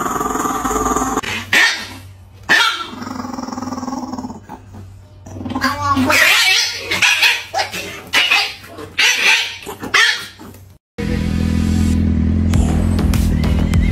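Small chihuahua barking and growling in sharp, irregular outbursts. About 11 s in, this gives way to a steady engine drone at road speed.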